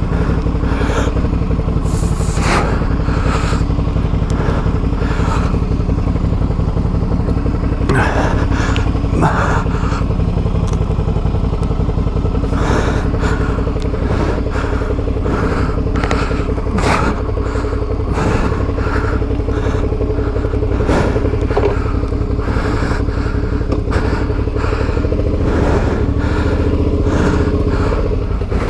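Adventure motorcycle engine running steadily at low revs, with repeated knocks, clatters and scrapes scattered through it as the bike works over rocks.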